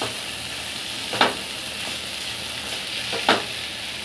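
Grated raw mango sizzling in hot ghee in a nonstick pan as it is stirred with a spatula, with two sharp knocks of the spatula on the pan, about a second in and again about two seconds later.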